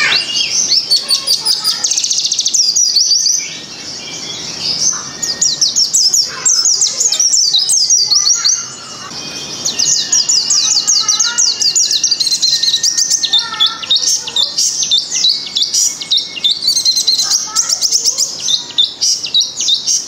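White-eye (pleci) song: fast, high-pitched twittering trills, with brief lulls about four and nine seconds in.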